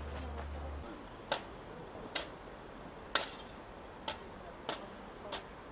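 Snow shovel blade striking and scraping the icy, snow-covered pavement in short, sharp strokes, about one a second. A steady low hum stops a little under a second in.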